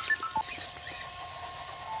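A tune of short electronic beeps that breaks off about half a second in, leaving a faint held tone with a few soft ticks.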